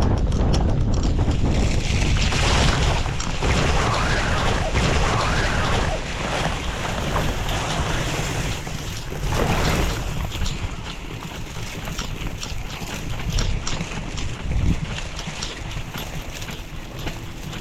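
Wind rushing and buffeting over the microphone, gusty and loud at first and easing off after about six seconds.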